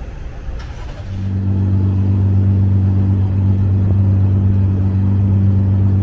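Steady low engine hum of a motor vehicle that sets in about a second in, grows louder and holds at one pitch, over street traffic noise.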